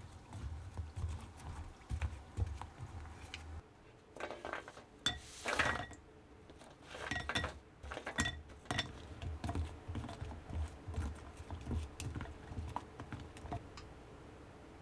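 Kitchen handling sounds: light clinks of utensils and dishes with soft knocks and brief rustling scrapes.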